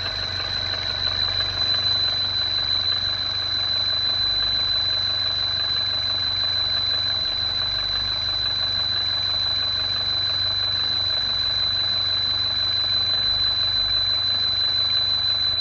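MINI Crossover (R60) engine idling steadily, with a constant high-pitched whine over the engine note: an abnormal engine noise.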